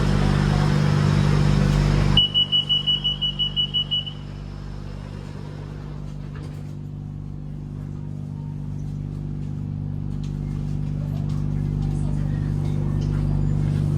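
BTS Skytrain door-closing warning: a rapid series of about eleven high beeps lasting about two seconds. It follows loud train running noise that cuts off abruptly. After the beeps, a low train hum slowly grows louder.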